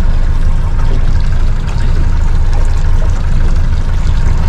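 Boat under way at sea: a steady low engine rumble with water rushing and splashing along the hull.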